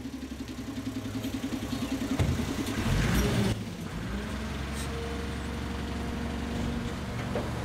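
A motor vehicle's engine running in street traffic, pulsing evenly at first, with a short louder rush of noise about three seconds in, then settling into a steady idling hum.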